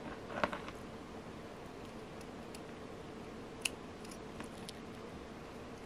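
Small scissors snipping a beading thread once, a short sharp click about three and a half seconds in, with a few faint handling clicks around it.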